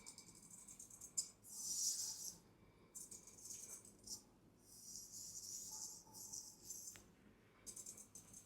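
Straight razor working in short strokes, each a soft, high hissing rasp lasting under a second, repeated every second or so, with a few light metallic clicks.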